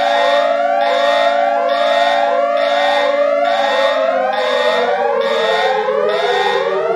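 Electronic emergency alert (EAS-style) alarm: layered rising siren sweeps repeating a little faster than once a second, with a pulsed high beep in step over steady low tones. About halfway through, the lower tones slowly slide down in pitch.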